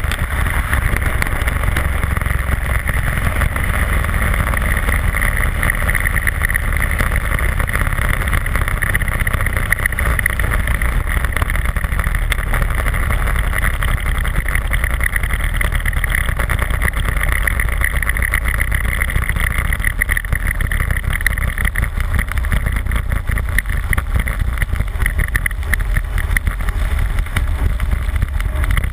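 Single-engine propeller aircraft in flight: steady engine and propeller drone with wind rushing over an externally mounted camera.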